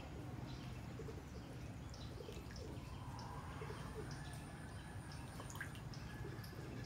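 Short, scattered bird calls with light water dripping and splashing, over a steady low hum.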